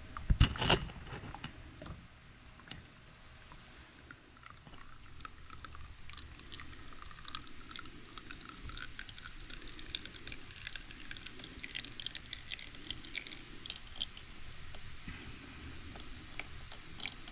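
A loud clunk about half a second in, then engine oil mixed with water and antifreeze trickling steadily out of a V-4 engine's oil pan into a drain pan. Coolant in the oil is a bad sign for the engine.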